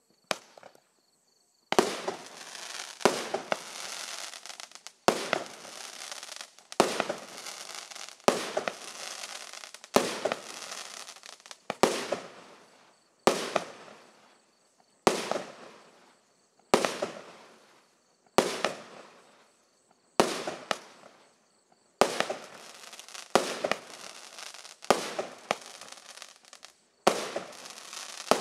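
A 24-shot, 30 mm (1.2-inch) consumer fireworks cake firing in sequence, about one shot every second and a half. Each shot is a sharp report followed by a fading hiss as its glittering stars burn out.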